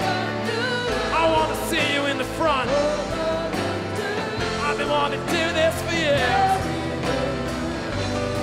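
Rock song with a lead singer ad-libbing in sliding, wavering phrases over a full band and a sung backing chorus.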